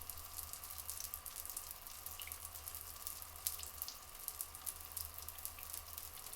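Flowing water trickling and splashing steadily, with many fine crackling droplet ticks over a low rumble.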